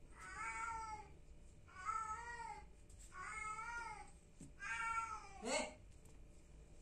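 Young kitten meowing four times in a row. Each call is high and drawn out for under a second, with the pitch rising and then falling, and a short sharp cry follows near the end.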